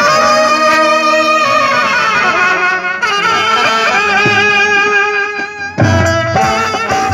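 Indian brass band playing a bhajan melody, the lead line wavering in pitch over sustained accompaniment. About six seconds in, the bass brass and drums come in heavily.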